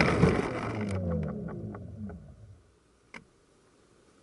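Electric RC airplane rolling to a stop on grass after landing: the rushing noise of the rollout fades, and the motor and propeller spin down in a falling whine with a few light ticks. About three seconds in there is one sharp click, then near silence.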